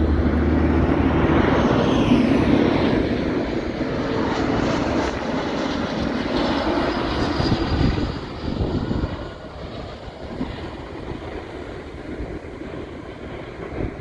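Bombardier CRJ regional jet's two rear-mounted turbofans on landing approach, a loud, steady jet noise whose whine falls in pitch as the aircraft passes. About nine seconds in the sound drops to a much quieter, distant jet hum.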